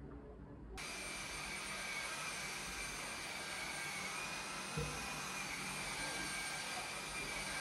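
Cordless stick vacuum cleaner running with a steady rushing sound and a high whine, starting abruptly about a second in. A short knock about five seconds in.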